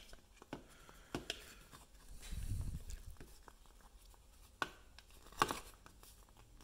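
Handling sounds of fingers pressing a rubber gasket into the channel of a plastic headlight dust cover: scattered small clicks, taps and rubbing, with two sharper clicks near the end.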